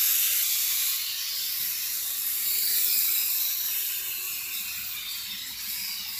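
Air Hogs Shadow Launcher mini toy helicopter in flight, its tiny electric motor and rotor giving a high, steady whir that rises and falls in level a few times.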